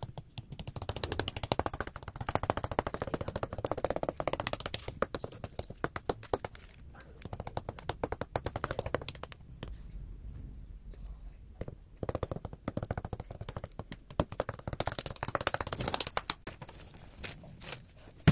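Rustling and crackling as a doll is handled and pulled out of a cloth tote bag: dense, irregular crackles and small taps, thinning out for a couple of seconds around the middle.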